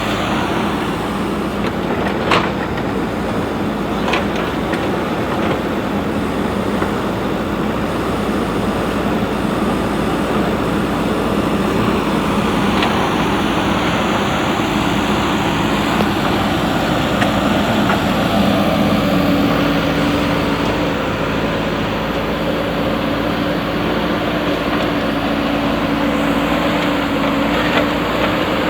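JCB 3DX backhoe loader's diesel engine running steadily under working load. Its pitch steps up and holds higher about two-thirds of the way through, and a few sharp metallic knocks are heard along the way.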